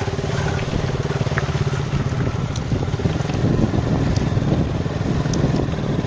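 Motorcycle engine running at low speed as the bike rolls over a wet, rough dirt track, with a few faint ticks over the steady rumble.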